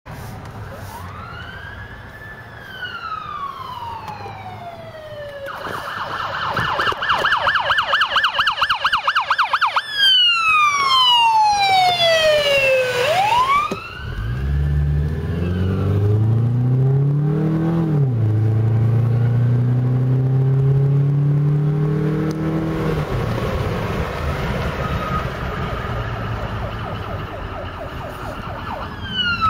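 Ambulance siren cycling through its tones: a slow rising and falling wail, then a fast warbling yelp, then a long downward sweep that swings back up. For several seconds after that a low vehicle engine note rises in pitch, drops sharply and holds steady while the siren sounds faintly, and the yelp starts again at the very end.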